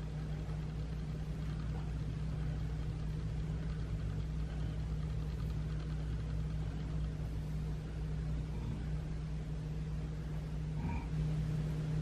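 Steady low hum of background room noise, unchanging throughout.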